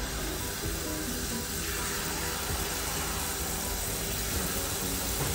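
Jalebi batter frying in hot oil, a steady sizzle as fresh spirals are piped into the pan, with soft background music.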